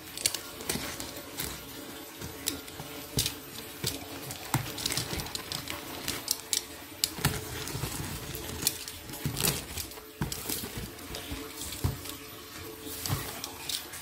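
A box cutter slicing and scraping through packing tape on a cardboard parcel, with irregular sharp clicks, tape tearing and cardboard rustling as the box is cut and pulled open.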